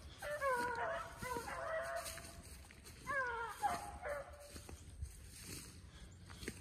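Beagle giving voice in long, wavering howls, twice: one lasting nearly two seconds near the start and a shorter one about three seconds in.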